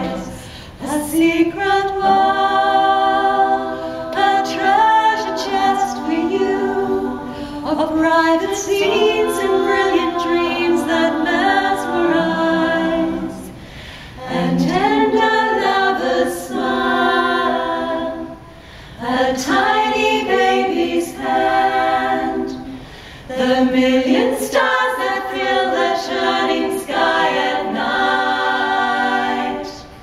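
A women's a cappella group singing in close harmony, several female voices together with no instruments, in sung phrases broken by short pauses.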